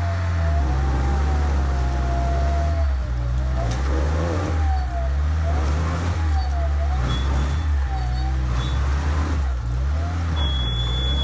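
Off-road vehicle engine working under load, its revs rising and falling again and again, with a whine that swings up and down in pitch.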